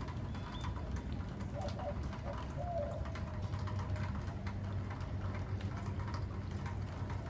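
Rain pattering and dripping steadily around a covered patio, with a bird giving a few short low calls about a second and a half and three seconds in.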